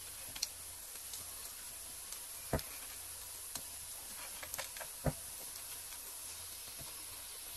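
Faint steady hiss of carrot halwa cooking in a nonstick pan, with a handful of sharp clicks as chopped almonds, pistachios and other dry fruits are scattered over it.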